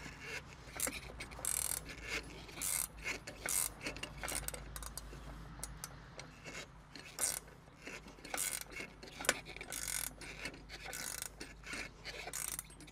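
Ratchet wrench clicking in short, irregular runs as it turns the caging bolt of an air brake spring chamber (piggyback), winding back its power spring.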